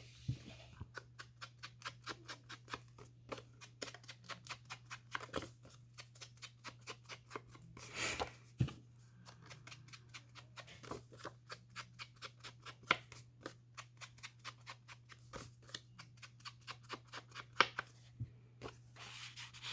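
Faint, quick run of light clicks and snips, a few a second, from handling and working paper craft pieces, with a few louder taps. A steady low hum sits underneath.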